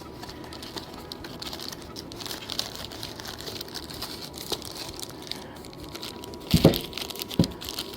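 Hands handling a brake wheel cylinder and its packaging: soft rustling and crinkling with small clicks, then two dull knocks near the end.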